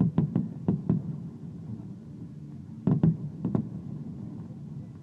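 Fireworks shells bursting in two quick volleys of about four bangs each, one at the start and one about three seconds in, over a low steady rumble.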